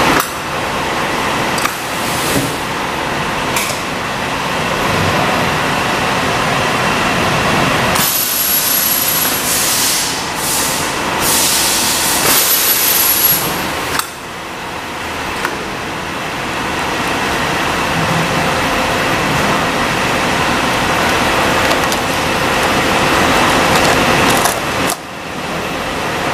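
High-frequency blister-packaging sealing machine and the factory machinery around it running with a steady mechanical hum. A stretch of loud hissing bursts with a thin high whine comes in about a third of the way through and stops after several seconds.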